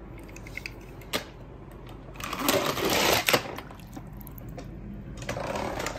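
Toy cars being handled: a sharp click about a second in, then a burst of clattering and rattling, and another shorter rattle near the end.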